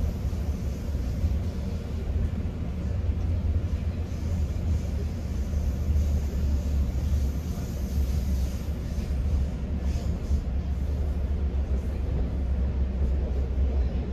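Steady low rumble of a GO Transit commuter train running along the track, heard from inside a passenger coach. A few faint light clicks or rattles come in from about ten seconds in.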